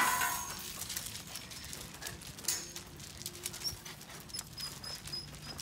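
Puppies' paws pattering and scuffing on loose gravel as they play, with a short yelp right at the start.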